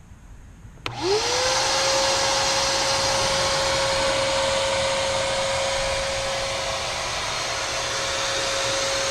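Shop vac switched on about a second in with a click, its motor whine rising quickly to a steady pitch and then running steadily with a rush of air. It is blowing into the pickup's exhaust pipe to pressurize the system for leak-finding.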